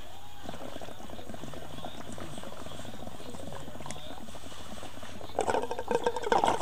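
Water bubbling steadily in a homemade glass-bottle bong as smoke is drawn through it from a lit bowl of hash. About five seconds in the bubbling gets much louder and stronger.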